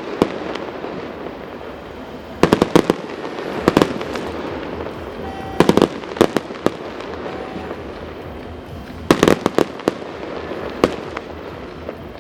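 Aerial fireworks display: clusters of several quick, sharp bangs every second or two, over a steady crackling hiss.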